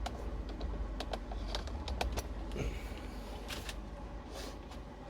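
A dozen or so irregular light clicks and taps of handling, over a low steady hum.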